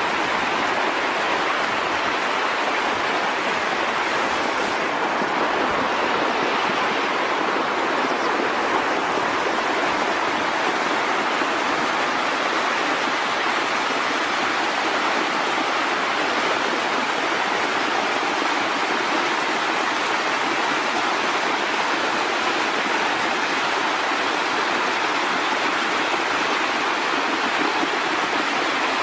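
Fast-flowing floodwater rushing steadily, an even wash of moving water with no pauses.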